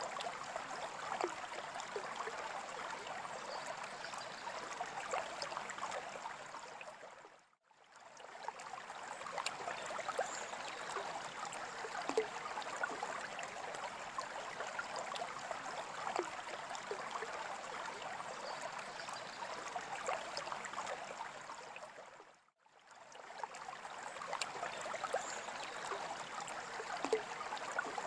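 Aquarium water trickling and bubbling steadily, with many small splashes and drips. It fades briefly to silence and back twice, about fifteen seconds apart.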